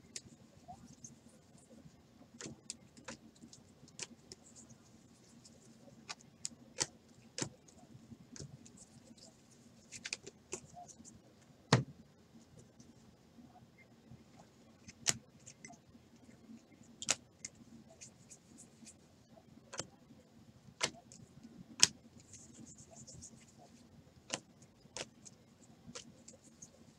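Trading cards being handled on a table: scattered, irregular clicks and taps as cards are flipped, set down and sleeved, the loudest about twelve seconds in.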